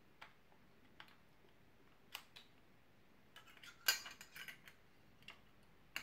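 Small metallic clicks and clinks of a saw blade being seated and repositioned on the toothed accessory mount of a Parkside Performance oscillating multi-tool, the tool switched off. A few single clicks, then a quick cluster of clinks about four seconds in, the loudest of them there.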